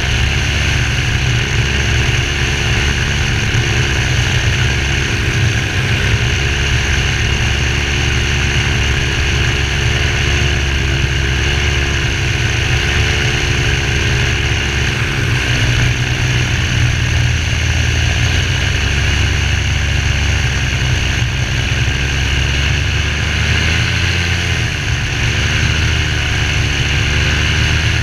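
Parajet V3 paramotor's two-stroke engine and propeller running steadily in flight, its pitch shifting slightly now and then. The engine has just been rebuilt and tuned and is running well.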